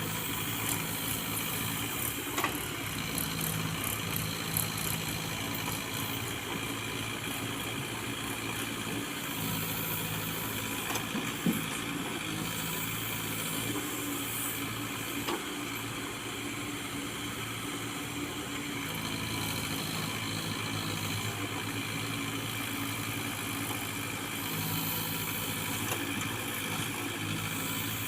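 Case 851 EX Pro backhoe loader's 96 hp diesel engine running at a steady speed, with a few short knocks over it.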